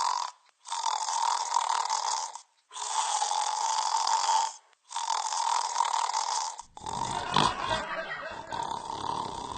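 Rhythmic snore-like rasping: three long strokes of about two seconds each with short breaks between them, followed in the last few seconds by a rougher, fuller sound with a sharp click.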